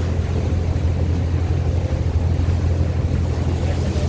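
Motorboat engine running steadily while underway, a constant low drone, with wind buffeting the phone's microphone and water rushing past the hull.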